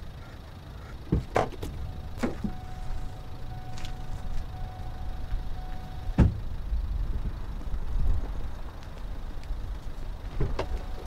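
Car door unlatching with a few clicks and knocks, then shutting with a loud thud about six seconds in, over a steady low rumble. A steady single tone sounds from a couple of seconds in and stops as the door shuts.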